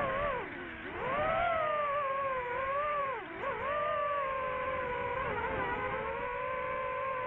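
Quadcopter drone's motors and propellers giving a steady whine whose pitch dips and rises again several times as the throttle changes.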